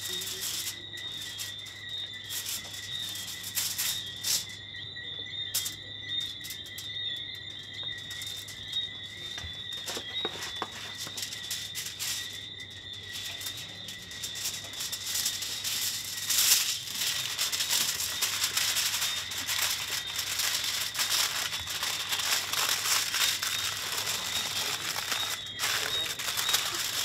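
Aluminium foil crinkling and rustling as hands fold it into a food pouch, the crinkling getting denser in the second half. Under it runs a steady high-pitched trill of night insects and a low hum.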